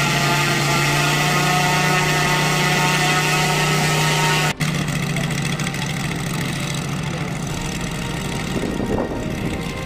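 Scale radial engine of a large RC Corsair model idling steadily with an even tone. It drops out for an instant about halfway, then runs on rougher and a little quieter, with a short swell in pitch near the end.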